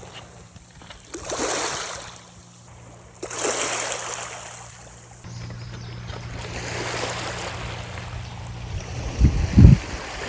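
Small waves washing onto a beach, two surges rising and fading in the first few seconds, then a steadier wash of surf. A couple of low thumps near the end.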